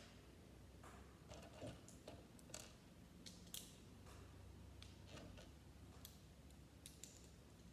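Faint, scattered clicks and taps of small plastic Lego pieces being handled and pressed together, over quiet room tone.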